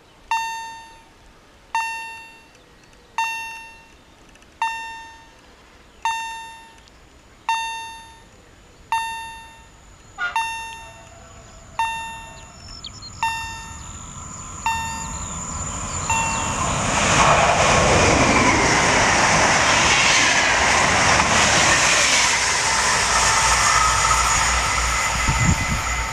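Level-crossing warning bell striking about once every one and a half seconds. It stops about fifteen seconds in, as an electric Intercity passenger train comes up and passes, its rumble and wheel noise building and staying loud.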